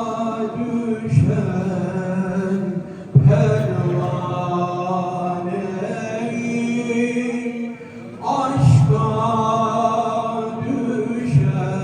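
A Sufi ilahi, a Turkish devotional hymn, chanted in long sustained vocal phrases that break briefly about three and eight seconds in.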